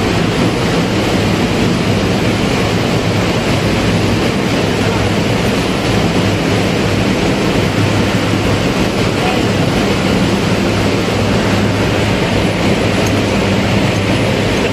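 Steady ship's engine-room machinery noise: a loud, even roar with a low hum underneath, unchanging throughout.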